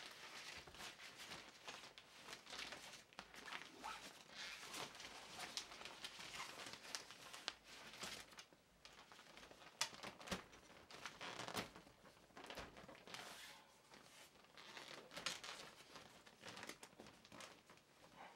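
Silver-lined softbox fabric rustling and crinkling as it is unfolded and opened out on its rods, with a number of sharp clicks and knocks, the loudest just under ten seconds in.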